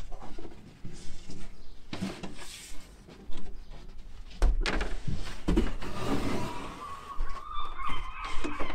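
A large pine-cladding ceiling panel being handled and lifted by hand: scattered knocks, bumps and scrapes of wood against the OSB van floor and walls. A drawn-out squeal comes in near the end.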